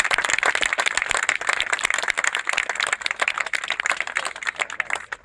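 Audience applauding: dense, irregular clapping from many hands that stops fairly abruptly near the end.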